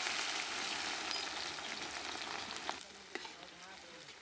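Onions sizzling in hot oil, a loud, even hiss that eases off about two and a half seconds in, with a few sharp clicks after that.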